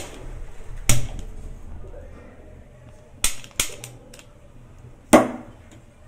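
Piezo gas lighter clicking five times at a gas stove's ring burner, sharp snaps at uneven gaps. The last click, about five seconds in, trails off longer as the burner catches.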